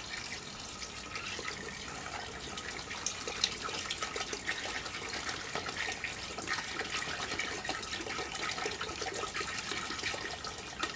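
Water poured steadily from two plastic bottles into two chambers of sand, splashing onto water pooled on the sand's surface.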